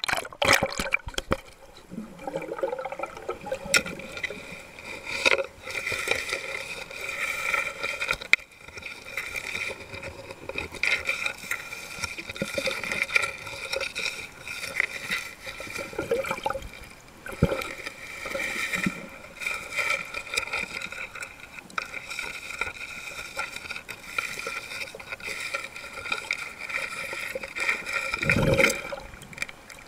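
Underwater sound from a submerged camera: water sloshing and gurgling in uneven surges, with steady high tones underneath, and a louder low surge near the end.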